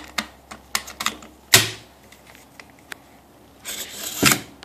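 Metallic clicks and clacks of an AR-15 upper in a test fixture being loaded and handled, with a sharper clack about one and a half seconds in. Near the end comes a short sliding rasp and a clack as the action is worked by hand to make it ready to fire.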